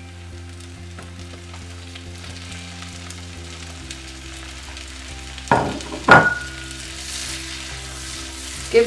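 Shrimp sizzling as they fry in butter and garlic in a hot wok. Two sharp knocks of a utensil against the pan come a little past halfway, the second ringing briefly.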